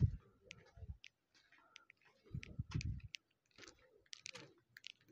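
Footsteps climbing concrete steps: faint, irregular sharp clicks and scuffs, with a few dull low thumps at the start and again around the middle.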